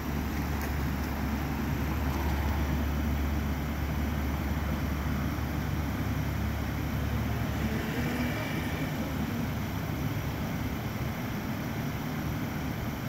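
Steady low rumble of a motor vehicle engine, strongest in the first half and easing off after about six seconds.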